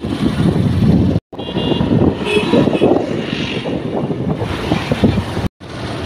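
Hero Glamour XTEC motorcycle on the move, with wind buffeting the microphone over the engine and road noise. The sound drops out briefly twice, about a second in and near the end.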